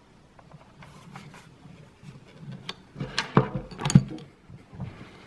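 Plastic body of a Gigaset DA610 corded desk phone being handled, turned over and set down on a wooden table. Light rustling gives way to a few sharp knocks of plastic on wood about three to four seconds in.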